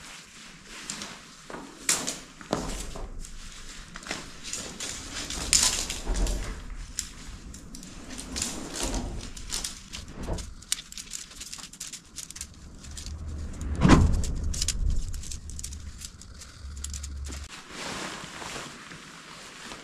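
Irregular clicks, rustles and knocks, with a low rumble through the middle and one loud thump about fourteen seconds in.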